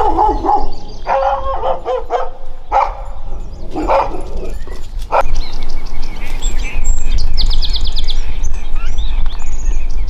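A dog barking several times in the first half, followed by small birds chirping, with a quick high trill a little after the middle. A strong low rumble runs underneath and grows louder in the second half.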